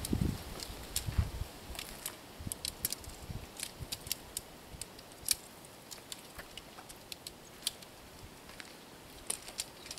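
Irregular small, sharp clicks and ticks of gear being handled while a cord line is worked by hand, with a couple of low thuds in the first second or so.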